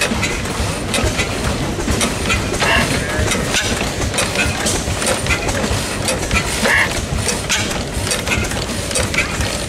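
1902 Lambert hit-and-miss engine running, its mechanical valves and valve gear clicking and knocking in a steady, even clatter.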